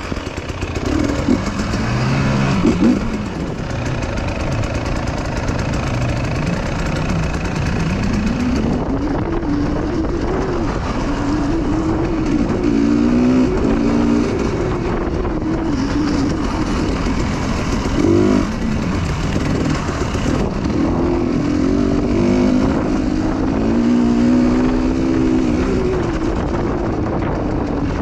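Motorcycle engine running under way, its pitch rising and falling again and again as it revs up and eases off, over a steady rushing noise.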